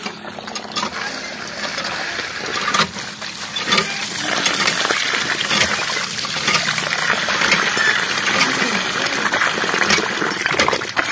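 Water from a hand pump pouring in a stream into a metal tray of rice and splashing over the grains as the rice is washed, with a few sharp knocks along the way.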